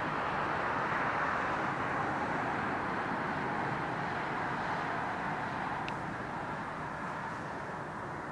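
Distant jet engine noise from a Boeing 777-224(ER) on final approach with its landing gear down: a steady rush that fades slightly toward the end.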